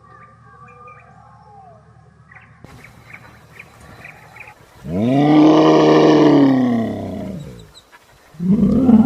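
A large animal's loud, drawn-out call: one long call of about two and a half seconds, about five seconds in, rising and then falling in pitch. A second call begins near the end. Before it there is only a faint background with light chirps.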